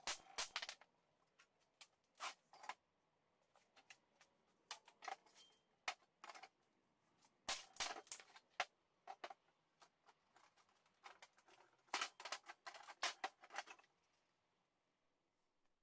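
Scattered light knocks and clicks as broken brick pieces and chips are handled, set down and shifted on a workbench, in irregular clusters about halfway through and again near the end.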